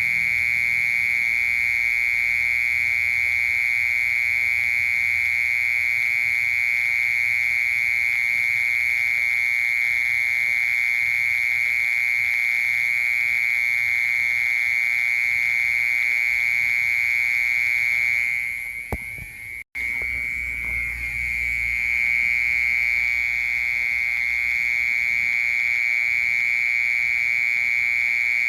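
A cricket's continuous, unbroken high-pitched trill. It fades briefly and cuts out for an instant about two-thirds of the way through, then carries on at full strength.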